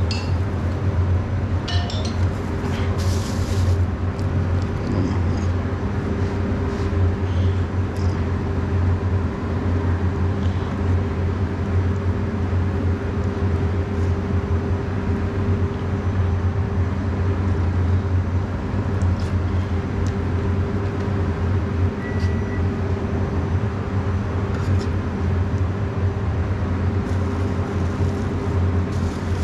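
Steady low drone of restaurant kitchen machinery, with a constant hum tone above it. Now and then there are light taps and clinks as a knife cuts marinated chicken on a stainless steel counter.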